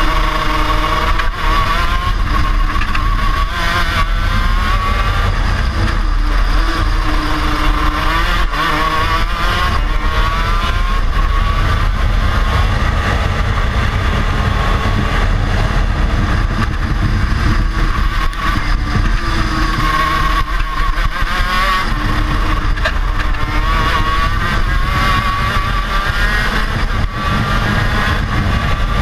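KZ shifter kart's 125 cc two-stroke engine at racing speed, heard from on board the kart. Its pitch climbs and falls again and again as the kart accelerates out of corners and slows for the next ones.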